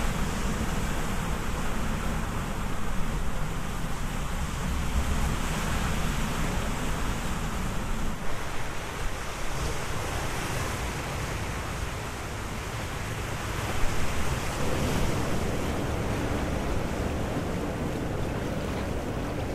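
Steady rushing outdoor noise with a deep rumble, heavier in the first eight seconds or so and then lighter.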